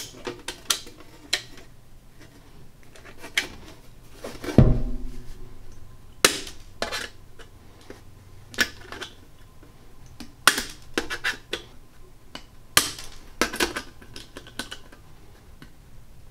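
Hand-squeezed punch-and-die nibbler punching through 22-gauge steel sheet: a string of sharp metallic snaps, one bite per squeeze, about a second or so apart and sometimes in quick pairs. A heavier thud with a short low rumble comes about four and a half seconds in.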